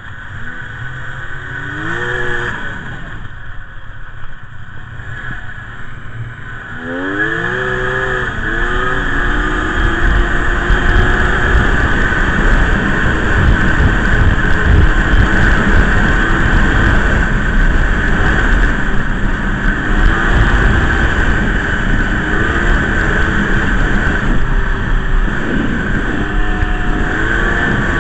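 Polaris XLT snowmobile's two-stroke engine revving up twice as the sled pulls away. It then runs at a steady, loud cruise from about ten seconds in.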